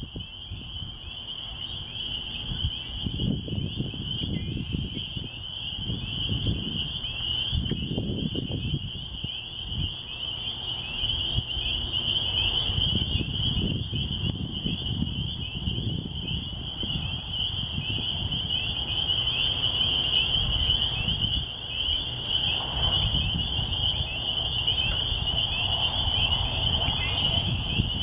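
A dense chorus of spring peepers: many overlapping short, high, rising peeps without a break, with wind gusting on the microphone underneath.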